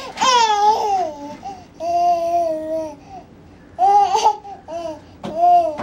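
Nine-month-old baby babbling in a string of four drawn-out, high-pitched squeals and coos.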